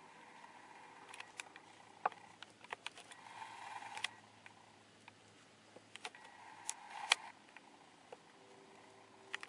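Handling noise: scattered light clicks and taps, with a short soft rustle about three and a half seconds in and another near seven seconds.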